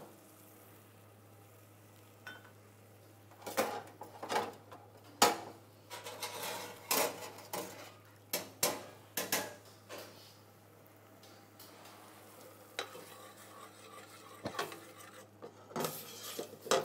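After a few quiet seconds, irregular clinks and knocks of kitchenware: plates and utensils handled on a steel counter, and a ladle knocking against a stainless steel stockpot.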